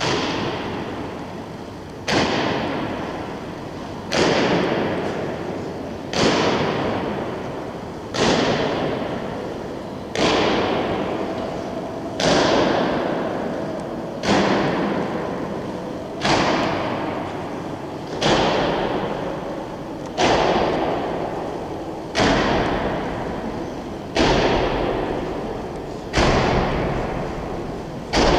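Soldiers' boots striking a stone floor in unison in a slow ceremonial march step. There is one heavy stamp about every two seconds, and each one rings out in a long echo that fades before the next.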